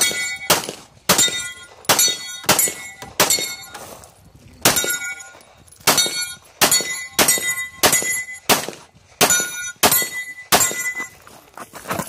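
SIG Sauer P320 pistol firing in rapid strings, about twenty shots at roughly two a second, each sharp crack trailed by a brief metallic ring. There is a short pause about four seconds in, and the firing stops near the end.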